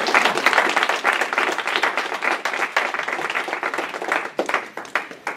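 Audience applauding, the clapping thinning out and dying away into a few last scattered claps near the end.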